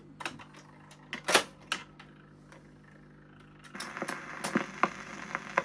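Surface noise of a shellac 78 rpm record in its lead-in groove: a few sharp clicks, a lull, then from a little past halfway a steady hiss and crackle with a pop that recurs about every three-quarters of a second, once per turn of the record.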